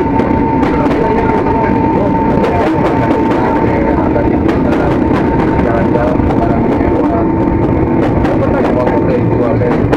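Loud running noise of electric commuter trains heard from aboard, one passing close alongside, with a steady high whine that fades about eight seconds in and many quick rattling clicks.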